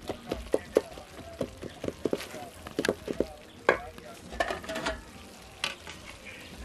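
A wooden spoon stirring a tomato and vegetable sauce in a metal pot, knocking against the pot's sides in a quick run of ringing clinks over a soft cooking hiss. In the second half the stirring stops and a few sharper, scattered clanks of metal being handled follow.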